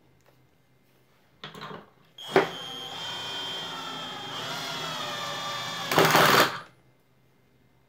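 Vonroc cordless drill/driver given a short trigger blip, then run steadily with a gear-and-motor whine against a torque tester, its pitch sagging a little as the load builds. About six seconds in, the torque clutch, set to its fifth step (about 2.8 Nm), slips with a loud rattle for under a second before the drill stops.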